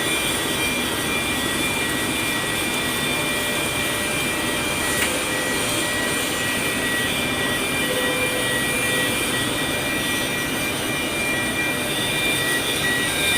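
Steady machinery noise: a continuous even hiss with a few thin high steady tones running through it, and one brief click about five seconds in.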